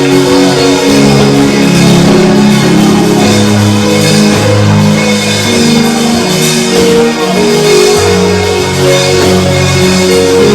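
Live church worship band playing an instrumental passage: sustained chords over bass and drums.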